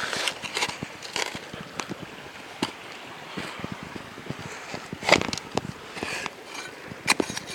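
Irregular footsteps and knocks on stony, gravelly ground, with the strongest knock about five seconds in.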